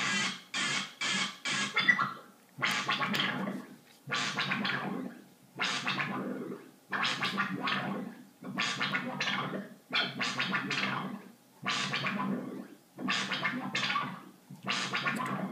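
Mogol synthesizer voice played by a jerk-equation chaos circuit, whose chaotic voltages set the pitch and the filter cutoff. The result is a run of separate notes, each opening bright and closing down to a dull tone. There are several quick ones in the first two seconds, then about one every second and a half.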